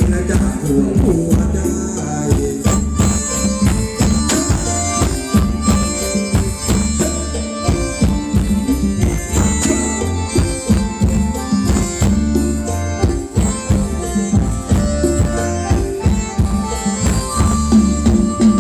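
A live Thai luk thung band playing loudly through a PA system, with a steady, driving drum beat and hand percussion under the melody.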